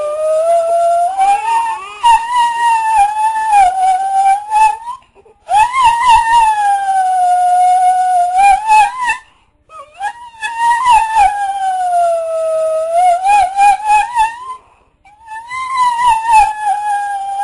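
A dog howling in long, drawn-out, wavering howls of about four seconds each, with short breaks between them.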